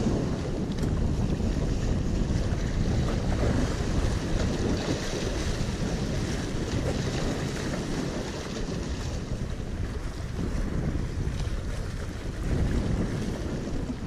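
Wind buffeting the microphone over small waves washing and splashing against the rocks of a jetty.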